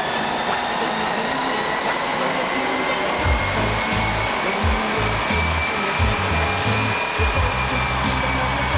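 BMW X5 running under load on a rolling-road dyno: a steady rush of engine, rollers and cooling fans, with a whine that rises slowly in pitch and eases slightly near the end.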